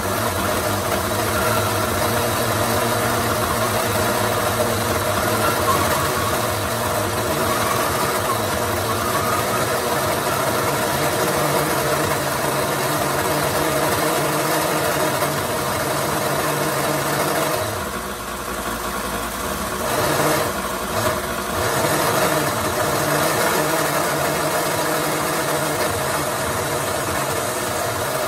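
Bench belt sander running steadily while a small plastic toy figure, held in pliers, is pressed against the moving belt and ground away. The sound drops for a moment a little after two thirds of the way through, then picks up again.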